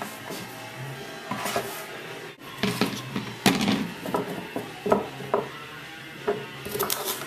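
Kitchen knife chopping raw carrots on a wooden table: a run of sharp knocks and clatter, thickest a little before the middle and again near the end, over music.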